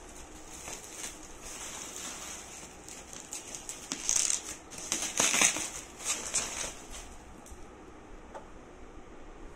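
Plastic bubble-wrap packaging crinkling and rustling as it is handled and pulled off, with a flurry of louder crackles in the middle.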